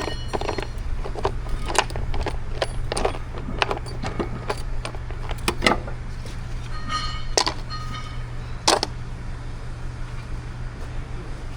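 Hand tools knocking and clinking on steel parts, some strikes ringing briefly, over a steady low hum.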